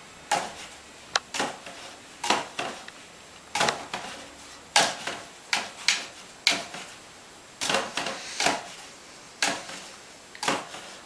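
A cat boxing: a run of quick paw slaps, each with a short scuffing tail, coming irregularly one or two a second.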